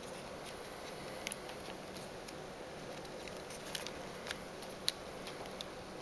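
A few faint, sharp little clicks and handling sounds as fingers work a laptop hard drive in its rubber jacket loose from the plastic drive bay, over a steady low hiss.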